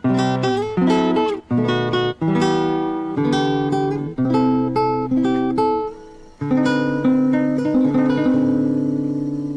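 Instrumental background music on a plucked string instrument: a run of chords with sharp attacks, then a last chord left ringing out and slowly fading near the end.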